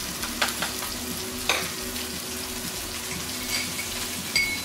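Barbarie duck breasts frying skin-side down in a pan, the fat sizzling steadily as the skin renders. A spoon clinks against the pans a few times, and a short ringing tone sounds near the end.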